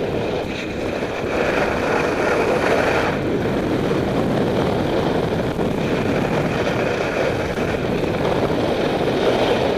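Steady rush of wind over a helmet camera's microphone while skiing downhill, mixed with the hiss and scrape of skis carving on groomed snow.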